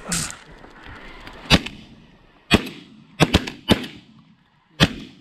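A volley of shotgun blasts from several hunters firing at once: about six sharp reports spread unevenly over four seconds, two of them almost on top of each other past the middle.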